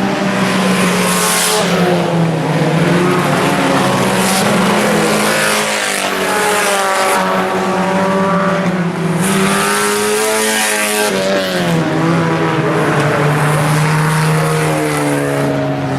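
Several four-cylinder IMCA Sport Compact race cars running at speed, engines revving up and falling off in pitch as they go around the track, more than one car heard at once.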